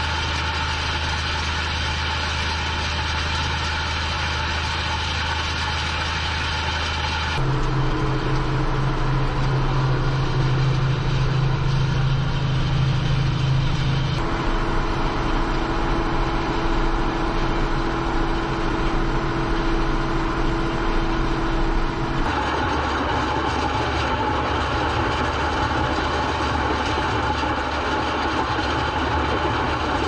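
Ford TW-20 tractor's six-cylinder turbo diesel running steadily under load as it pulls a set of 40-foot ring rolls across dry, cloddy soil, with the rumble and clatter of the steel roll rings. The sound shifts abruptly three times, between a deep engine note and a brighter rattling mix.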